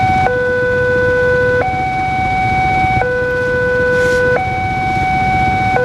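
Railway level-crossing warning alarm sounding a steady two-tone electronic signal, a low note and a higher note alternating about every second and a half, which warns that a train is approaching while the barrier is down. A low rumble of waiting motorcycles and traffic runs underneath.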